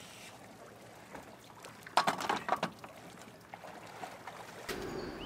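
A quick cluster of knocks and clatters about two seconds in, from electric scooters being shifted and stacked in an inflatable boat, over faint lapping water.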